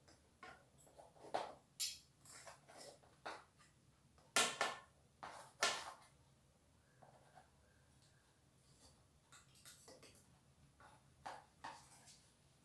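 Knife and spatula clinking and scraping against a cake tray and plate as a slice of cake is cut and lifted out: scattered light clicks, the two loudest about four and a half and six seconds in.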